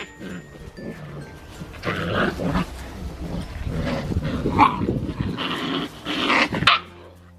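Eight-week-old Siberian husky puppies play-fighting, growling and grumbling in rough bursts, with a short yip about two-thirds of the way through; the noise stops suddenly near the end.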